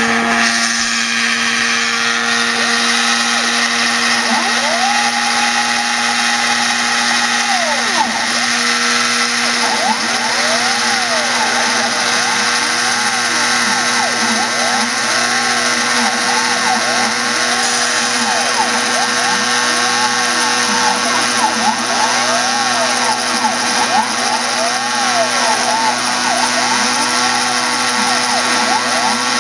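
A 30-year-old Foredom flexible-shaft tool, used as the spindle of a home-built Arduino/GRBL CNC mill, runs with a steady whine. Over it the mill's stepper motors sing: one held tone about five seconds in, then from about ten seconds in a run of repeated rising-and-falling pitch sweeps as the axes speed up and slow down through their moves.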